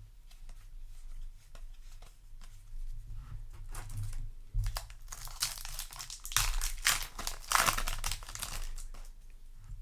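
Light ticks of cards being handled, then a foil Yu-Gi-Oh! booster pack wrapper crinkling and tearing as it is opened, from about halfway in and loudest near the end.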